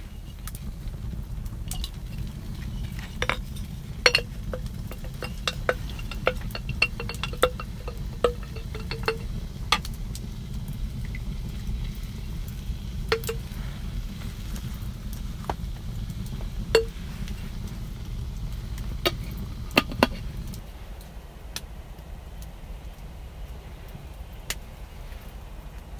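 Cooking utensils clinking and tapping against a metal frying pan, a scatter of sharp taps, some with a short ringing tone, over a steady low rumble that drops away about 20 seconds in.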